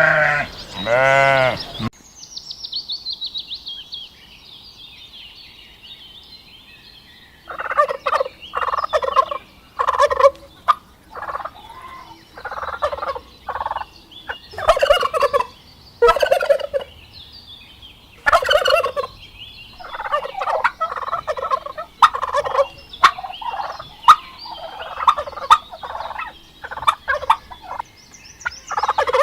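Domestic turkeys gobbling: short rattling gobbles repeated every second or two, some overlapping, starting about seven seconds in. It opens on the end of a sheep or goat bleat.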